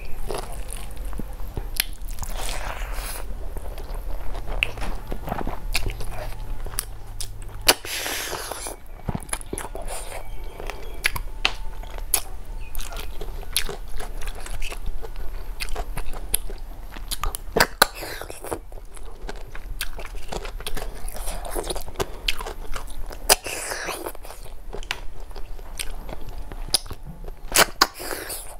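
Close-miked eating of snail curry with rice and crunchy salad: chewing and biting with many sharp, wet clicks and smacks, and now and then a longer noisy stretch of about a second.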